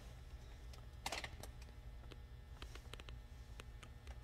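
Faint, scattered clicks and taps of a fingertip on a car touchscreen, the loudest about a second in, over a low steady hum.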